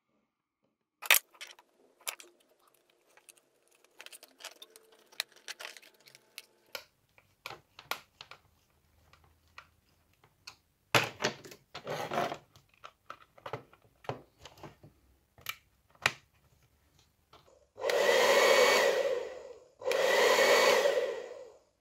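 A run of sharp clicks and knocks, then a hair dryer switched on twice near the end, its fan motor spinning up and blowing steadily for about two seconds each time before cutting off. This is the dryer being run on its repaired switch.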